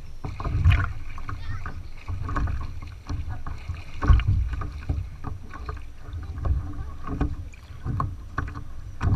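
Lake water slapping and splashing against the nose of a plastic paddleboard as it is pushed through the water, with irregular low thuds against the hull, the loudest about four seconds in.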